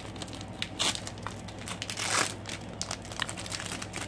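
Foil wrapper of a Pokémon trading card booster pack crinkling and rustling as it is handled just after being torn open, with louder crinkles about one and two seconds in.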